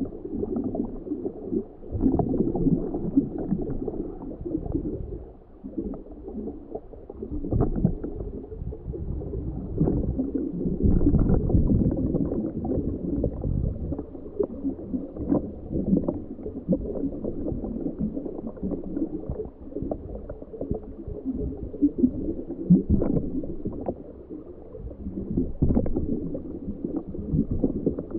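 Muffled underwater gurgling and sloshing with scattered small knocks, heard through the sealed camera housing of a homebuilt ROV on a dive. The sound is dull, with no high end, and swells and fades irregularly.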